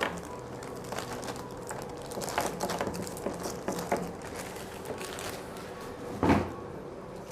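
Packaging and box contents being handled during an unboxing: scattered rustles and light knocks, with one louder thump about six seconds in.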